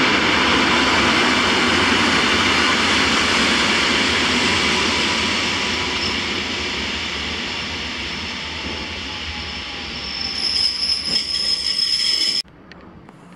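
Koleje Mazowieckie EN57AL electric multiple unit (two units coupled) running along the station tracks, its noise slowly easing as it moves away. High wheel squeal on the rails comes in about ten seconds in, and then the sound cuts off suddenly.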